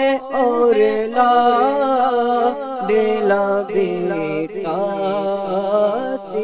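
A man singing a naat, an Islamic devotional song, in long, wavering held notes.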